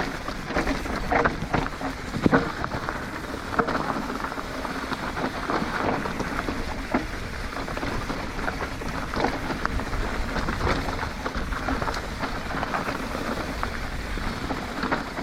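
Yeti SB150 mountain bike rolling down a steep rocky trail: tyres crunching over rock and loose gravel, with many sharp knocks and rattles from the bike over the bumps.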